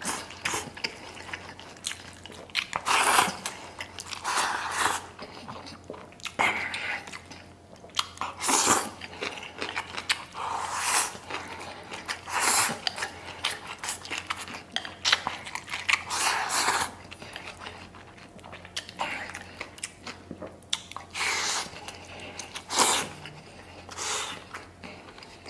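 Close-up eating sounds: mouthfuls of braised pork knuckle and rice taken from a bowl with chopsticks and chewed. The chewing comes in irregular bursts every second or two.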